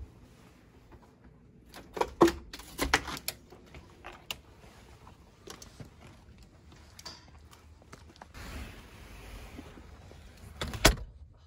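Handling noises of people moving about with their gear in a small room: scattered sharp clicks and knocks, a bunch of them about two seconds in, a soft rustle later on, and a loud knock near the end.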